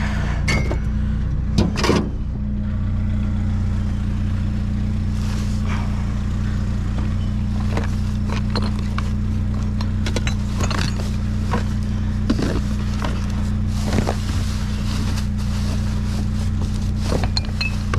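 A motor vehicle's engine idling with a steady low hum, with scattered clinks and knocks from scrap being handled.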